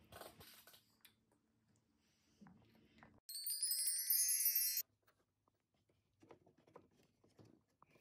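A bright, sparkling chime sound effect: a shimmering run of high tinkling notes that cuts in sharply about three seconds in and stops about a second and a half later. Before it there are faint eating sounds. After it come soft clicks and rustles of a small item being pulled out of an advent calendar door.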